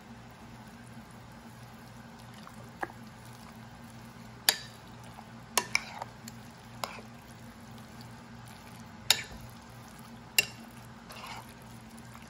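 A spoon stirring shredded chicken into a thick, creamy pot pie filling in a glass mixing bowl, with a handful of sharp clinks of the spoon against the glass, the loudest near the middle and towards the end.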